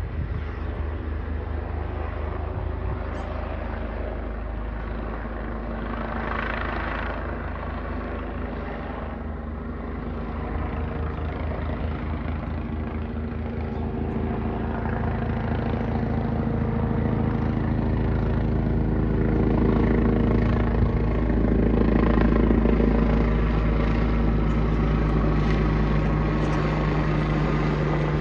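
Helicopter circling overhead: a steady rotor chop and engine drone that grows louder over the second half as it comes closer.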